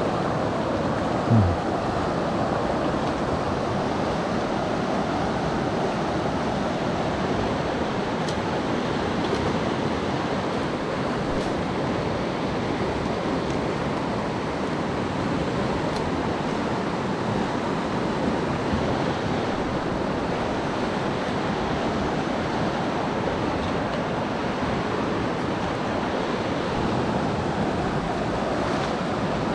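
Steady rush of flowing stream water, an even hiss with no break. About a second in, a brief low sound stands out above it.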